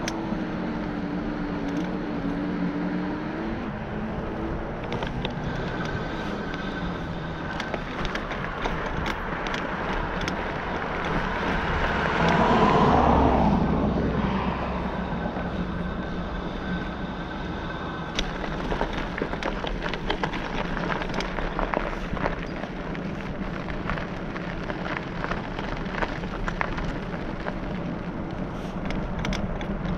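Steady wind and tyre noise from riding along a paved path, with a louder rush of sound for about two seconds near the middle.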